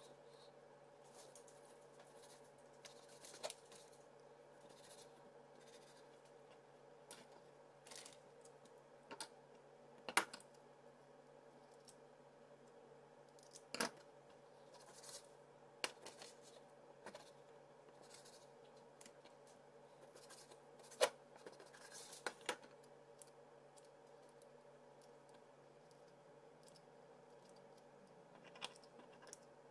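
Faint, scattered taps and snips of a chef's knife and kitchen scissors cutting raw chicken thighs on a plastic cutting board, over a steady low hum.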